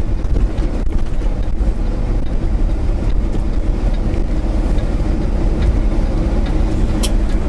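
Semi truck's diesel engine and road noise while driving: a steady low rumble.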